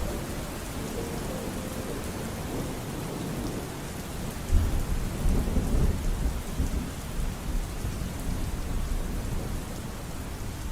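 Steady rain falling, with a peal of thunder breaking about halfway through, a deep rumble that rolls on for a couple of seconds before fading back into the rain.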